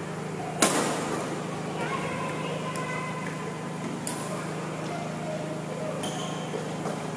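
Badminton rally: a HiQua Lightning racket smacks the shuttlecock hard about half a second in, with another hit about four seconds in and fainter return hits from across the court in between and near the end.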